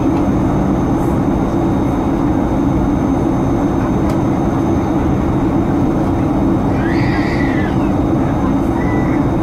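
Steady cabin roar of a Boeing 737-900ER airliner in flight: an even, low rumble and hiss from the engines and airflow.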